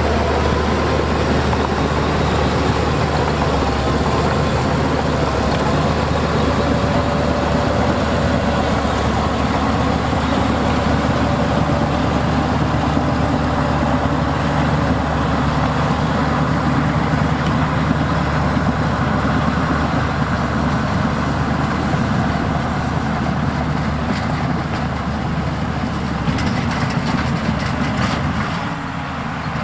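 Heavy diesel earthmoving machinery running steadily under load, with a deep engine drone and a faint wavering whine over it in roughly the first third.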